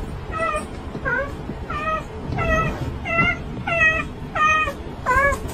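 Domestic cat meowing over and over: about nine short calls at an even pace, roughly one every half second.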